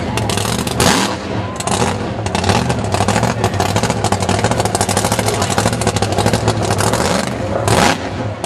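Supercharged V8 drag car held in a smoky burnout, engine revving hard with its rear tyres spinning. A fast crackling pulse runs through the engine note, with brief louder surges about a second in and again near the end.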